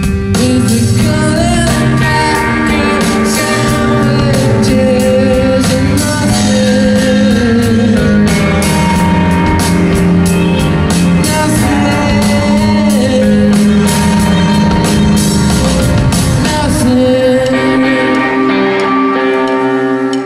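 Live rock band playing a song with a steady drum beat, guitar and bass under a male voice singing.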